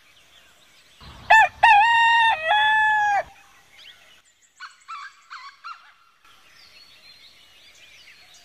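A rooster crowing once, a long cock-a-doodle-doo about a second in, followed by small birds chirping faintly.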